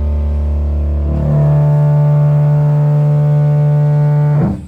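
Heavily distorted amplified instrument holding a very low note, which jumps to a higher sustained note about a second in. It is cut off suddenly near the end: a line check of the band's gear.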